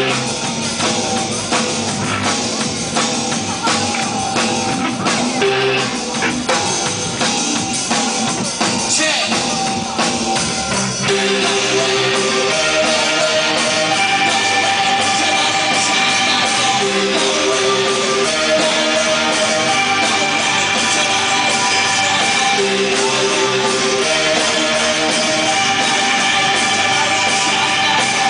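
Live rock band playing loudly in a small club, with drum kit and guitar. About eleven seconds in, the busy drumming gives way to a steady repeating riff of held notes.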